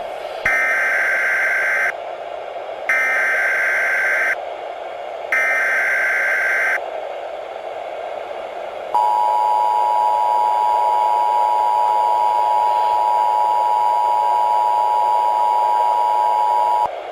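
Emergency Alert System alert tones: three short screeching bursts of the SAME digital header, each about a second and a half long with about a second between them, then the two-tone EAS attention signal (853 and 960 Hz) held steady for about eight seconds and cutting off suddenly. A steady radio-static hiss runs underneath.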